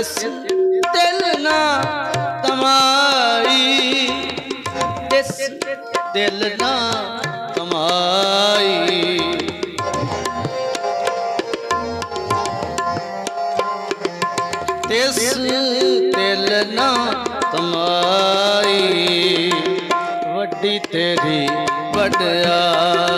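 Shabad kirtan music: tabla playing a steady rhythm under a wavering, gliding melodic line.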